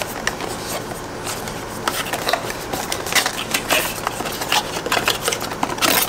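Cardboard perfume box being handled and opened: irregular crinkles, taps and clicks of the card flap and paper insert, loudest near the end.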